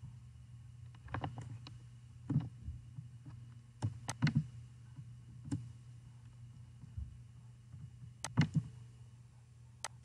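Computer mouse clicking, about a dozen short sharp clicks at irregular intervals, some in quick pairs, over a low steady hum.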